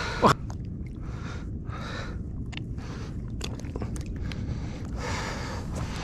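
Crackling handling noise with a few sharp clicks, from hands and a large caught fish held right at the microphone, over a steady low rumble.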